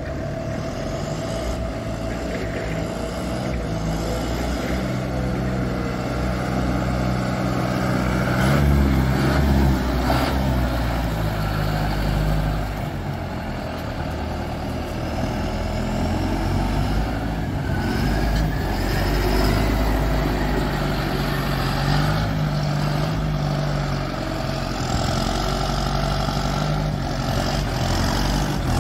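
John Deere 6420S tractor's four-cylinder diesel engine running as the tractor drives, its note rising and falling several times with the throttle.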